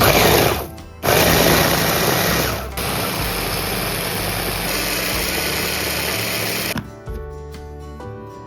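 Electric food chopper blending orange pieces in two runs: a short pulse, then about six seconds of steady running that stops suddenly near the end, with soft background music underneath.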